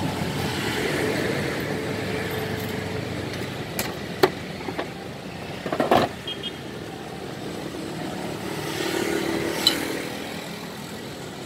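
Road traffic with motorcycles and cars passing, a steady noise that swells near the start and again near the end. A few sharp clinks of kitchenware sound about four and six seconds in.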